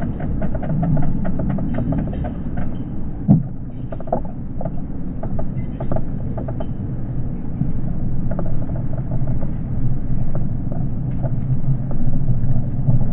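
A bicycle ridden slowly over pavement, picked up by a camera on the handlebars: a steady low rumble with rapid light ticking, and one sharp click about three seconds in.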